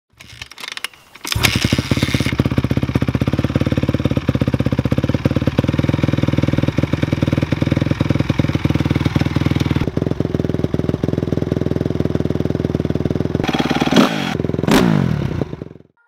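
Honda CRF250 dirt bike's single-cylinder four-stroke engine, with an Akrapovic exhaust, catching just over a second in with a quick rev, then idling steadily. Near the end it is blipped a few times, with one sharp crack, before the sound cuts off.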